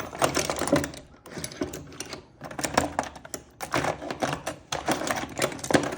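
Small metal lock parts and keys clicking and clattering irregularly as they are handled and sorted through.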